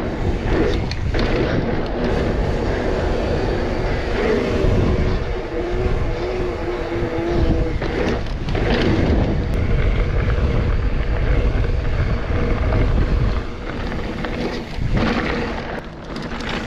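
Wind buffeting the camera microphone as a mountain bike rolls fast along a paved road, with the tyres running on the tarmac underneath. A wavering hum rises and falls for a few seconds in the middle.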